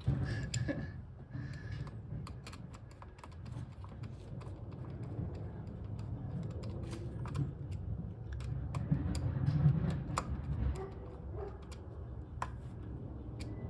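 Irregular light clicks and taps of tools and parts being handled while spark plugs are threaded in and fitted on a Nissan 300ZX engine, over a low rumble.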